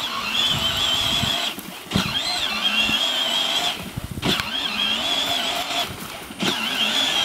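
Battery-powered Barbie Jeep ride-on toy driving over grass: the whine of its electric drive motors and gearbox, cutting out and starting again three times as the small driver lets off and presses the pedal.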